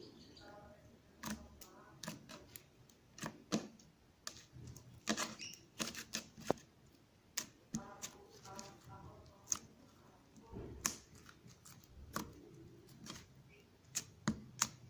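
Slime being squeezed and played with by hand, making irregular sharp clicks and pops.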